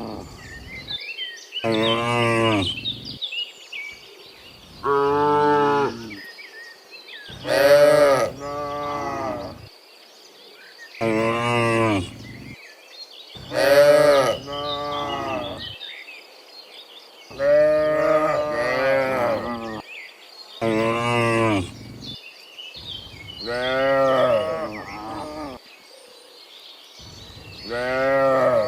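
Cattle mooing over and over: about ten separate moos, each a second or two long with a rising-then-falling pitch, several of them overlapping around the middle.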